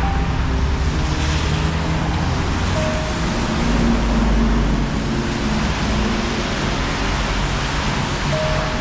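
Steady rushing outdoor street noise, like traffic and wind, with soft background music of slow held notes over it.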